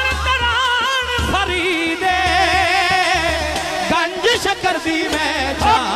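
Manqabat in qawwali style: a male lead singer holds long wordless melismatic lines with heavy vibrato, over a steady low drum beat.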